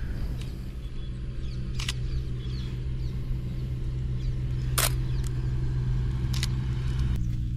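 Motorbike engine idling steadily, its note shifting slightly near the end, with three sharp camera shutter clicks from a Canon EOS R spread across the stretch.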